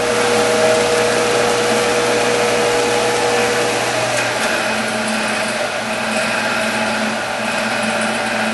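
Monarch 10EE tool room lathe running under power with its variable-speed drive, a steady mechanical whir with a hum. About four seconds in, the hum shifts from a higher tone to a lower one.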